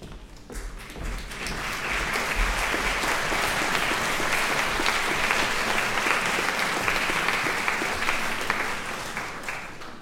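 Large concert-hall audience applauding, the clapping building up over the first couple of seconds, holding steady, then thinning out near the end.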